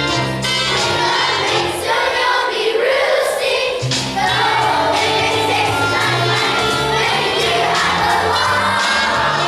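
Children's chorus singing a musical-theatre number over instrumental accompaniment.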